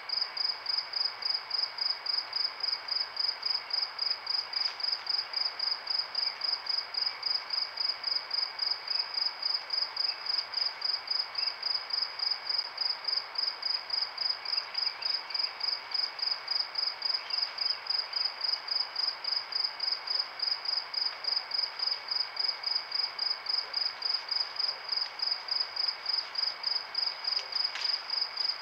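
A cricket chirping in a steady, even rhythm, about three high chirps a second, over a soft background hiss of night insects.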